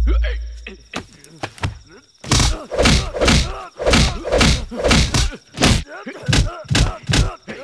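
Film fight-scene punch and body-blow sound effects: a deep boom dying away in the first second, then a quick string of hard hits, about two a second, mixed with men's grunts and groans.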